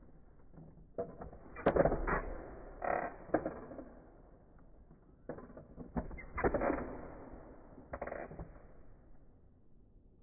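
Plastic clicking, clacking and creaking of a push-button toy fighting base as its red plungers are pressed and the two plastic figures swing and knock together, in irregular bursts, the loudest about two seconds in and again around six to seven seconds in.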